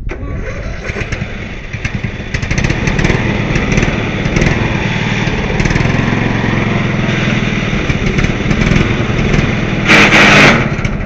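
A modified lawnmower's small engine comes in suddenly and runs loudly, getting louder about two seconds in. Near the end a brief, very loud rush of noise sits over it.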